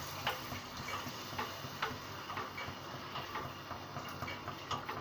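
Spatula knocking and scraping against a cooking pan while stirring chicken in water, a string of irregular clicks over a steady low hiss.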